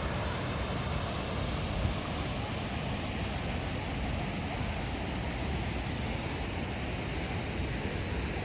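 Steady rushing noise of a large waterfall, Harajiri Falls, with its water falling and churning.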